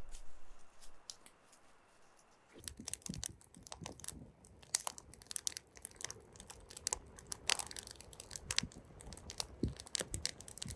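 Wood campfire crackling, with irregular sharp pops and snaps that start about two and a half seconds in.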